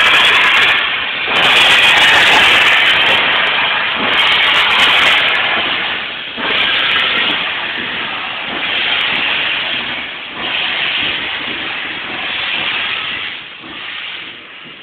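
Steam locomotive 34016 Bodmin, a Bulleid West Country class Pacific, hissing loudly as it blows steam from its cylinder drain cocks while moving off slowly. The hiss swells and dips every couple of seconds and fades away near the end.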